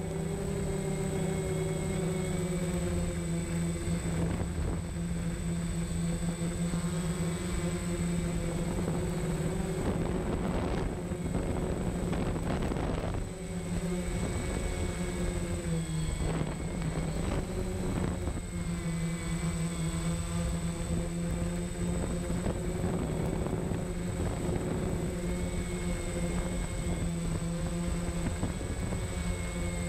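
DJI Phantom quadcopter's motors and propellers buzzing steadily while it hovers, heard from the camera mounted on the drone itself; the pitch wavers slightly as the motors adjust. A few short rushes of air noise come about halfway through.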